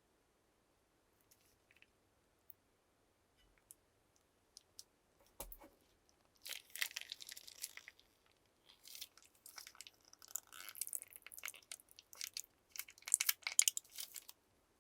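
Plastic piping bags crinkling and crackling as they are handled close up. A few faint clicks come first, then dense crinkling in three spells starting about six seconds in, loudest near the end.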